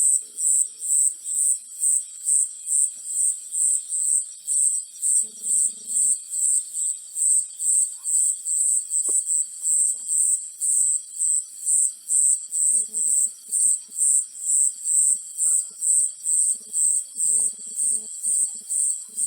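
A chirping insect calling in a steady, even rhythm of about three high-pitched pulses a second. Fainter, lower pulsed calls come in now and then, most around the middle and near the end.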